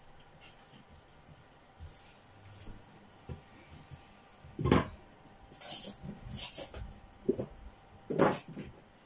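Kitchenware being handled at a counter: a few separate knocks and clatters of dishes and pots, with short scraping noises in between, starting about halfway through.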